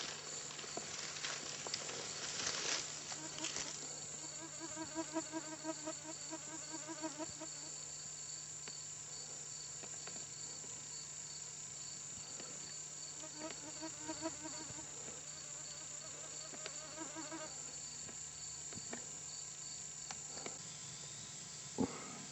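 Insects chirping in a steady high-pitched drone, with a lower pulsing buzz that comes twice and lasts a few seconds each time. A sharp click sounds near the end.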